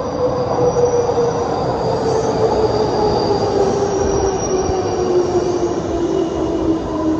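JR 201 series electric train pulling into the platform and braking, its motor whine falling steadily in pitch over the running rumble, with faint high squeals above.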